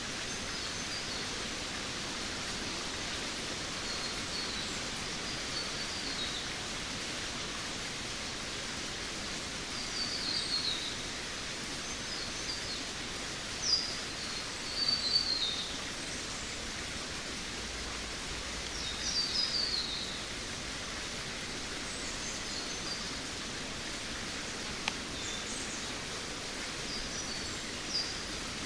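Jungle ambience: a steady hiss under birds calling every few seconds with short, high, quickly falling chirp phrases.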